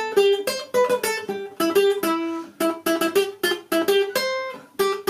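Classical acoustic guitar playing a melodic run of single plucked notes, about three to four a second, each note ringing on briefly.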